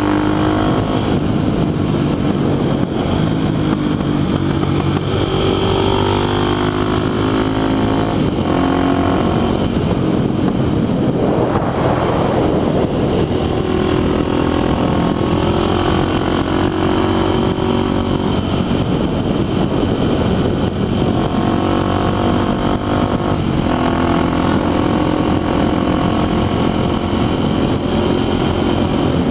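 Motorcycle engine running at road speed, its pitch slowly rising and falling with the throttle, over a steady rush of wind noise. A broader swell of noise comes about twelve seconds in.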